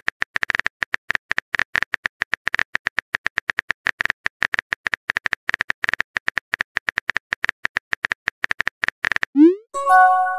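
A texting app's keyboard-typing sound effect: a fast, irregular run of small clicks for about nine seconds. Near the end comes a short rising pop, then a brief electronic chime as a new message bubble appears.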